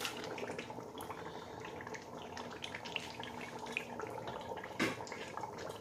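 Tomato stew simmering in a stainless-steel pot: faint steady bubbling with small pops and ticks. A single sharper knock comes a little before the end.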